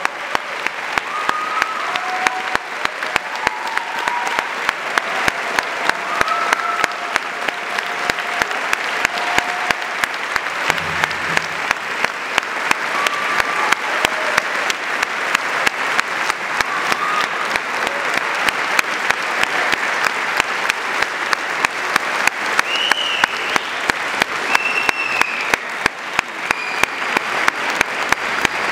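Large audience applauding steadily, with scattered shouts and whoops of cheering rising above the clapping.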